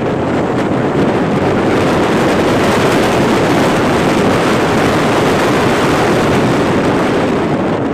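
Steady rush of wind buffeting the microphone mixed with road and engine noise from a vehicle driving along the road.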